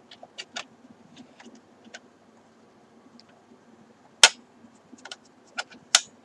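Scattered sharp clicks and taps of a plastic View-Master viewer and reels being handled, with a loud click a little after four seconds in and another near the end, over a faint steady hum.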